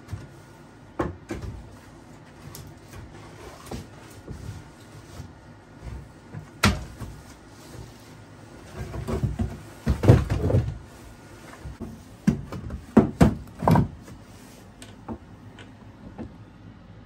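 The hinged lid of a wooden wood box is opened and split firewood logs knock against each other and the box as they are set inside. There is a dense run of knocks about midway and several sharp, separate knocks after it.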